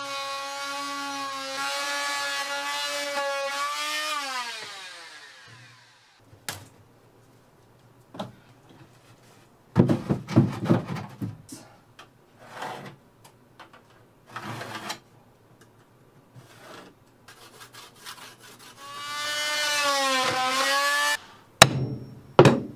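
Corded oscillating multi-tool buzzing as it cuts into a wooden camper floor, then winding down with a falling pitch about four seconds in. Scattered knocks and handling clatter follow; near the end the tool runs again briefly, its pitch dropping as the blade bites, and two sharp hammer knocks come right after it stops.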